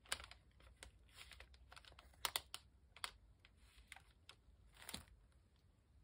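Faint handling of paper and small craft items on a desk: scattered light clicks and taps with a little soft paper rustling.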